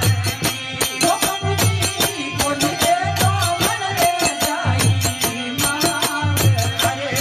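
Bhajan performance: a man's voice singing to harmonium accompaniment, over fast clicking percussion and a low drum beat that recurs about every one and a half seconds.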